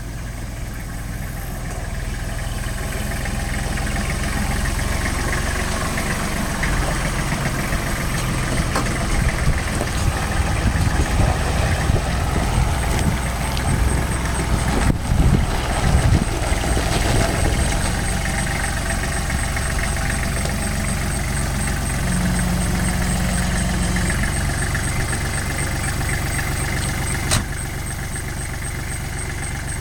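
An engine idling steadily, with some louder, uneven moments about halfway through.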